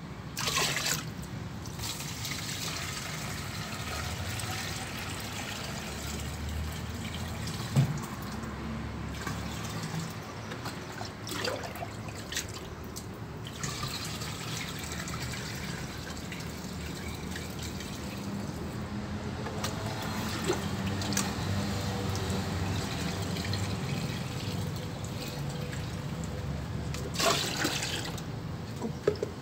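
Liquid mixture stirred with a stick in a plastic bucket, then poured from the bucket into a pressure sprayer's tank: steady splashing and trickling, with a few light knocks of the bucket and stick.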